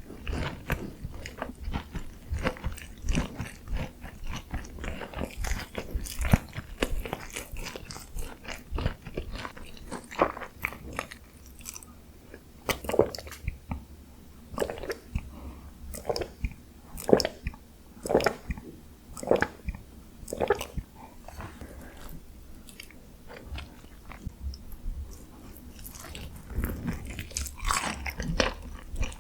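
Close-miked biting and chewing of crispy Korean fried chicken (dakgangjeong) glazed in a honey mustard cream sauce: a steady run of irregular crunches and crackles, with several louder crunchy bites in the middle stretch.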